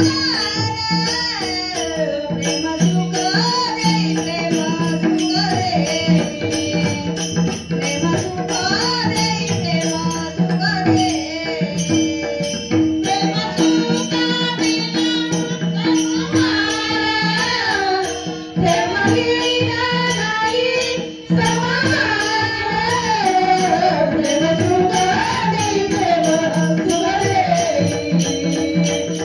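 Devotional group singing of a Marathi abhang: a voice sings a winding melody over a steady held drone, with drum and small hand cymbals keeping an even beat.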